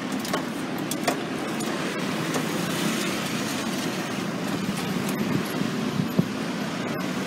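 Road traffic: cars driving over a level crossing, heard as a steady rush of engine and tyre noise with a few light clicks.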